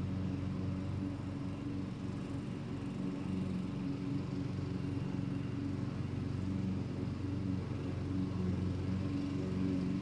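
Lawn mower engine running steadily at an even pitch, with no change in speed or load.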